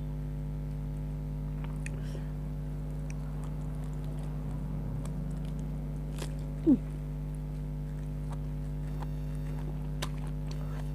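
Quiet eating sounds, faint chewing and mouth clicks, over a steady low electrical hum. A little past halfway comes one short, louder sound that falls in pitch.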